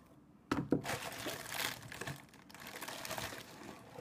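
Plastic packaging crinkling and crackling as it is pulled open by hand, starting about half a second in and going on with sharp crackles.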